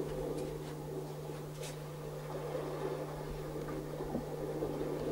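Faint, steady mechanical hum with a few soft clicks, typical of the small drive that moves the puppet-theatre ship across the painted sea.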